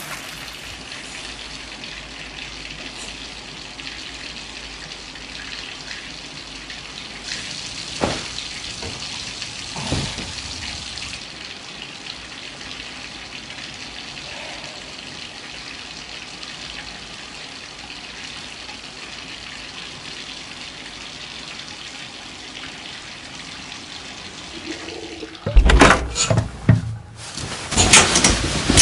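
Water running steadily. About eight and ten seconds in there are two brief louder swells, and near the end a run of loud, sudden knocks.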